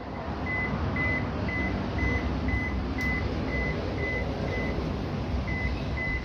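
Toshiba automatic washing machine's alarm beeping, short high beeps about twice a second with a brief gap near the end, over a steady hum: the warning that goes with its EL error code.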